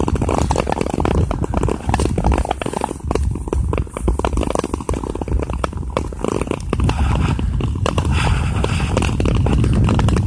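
Ice skates gliding and scraping on clear lake ice, with many short sharp clicks and crackles, over a steady low rumble of wind on the microphone.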